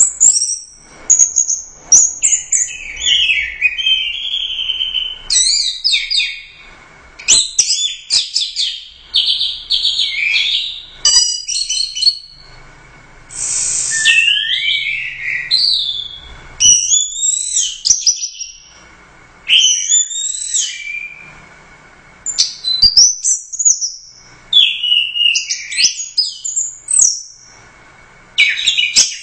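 Orange-headed thrush (anis merah) singing loudly and continuously: a long run of fast, varied, high-pitched whistled and chattering phrases, broken now and then by short pauses.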